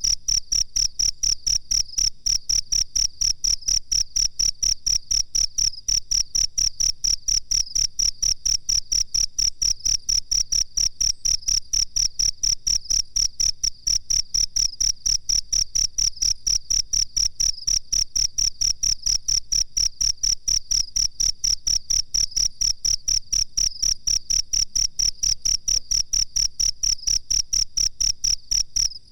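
Field cricket chirping steadily: an unbroken run of evenly spaced short, high chirps, several a second, with a faint low hum underneath.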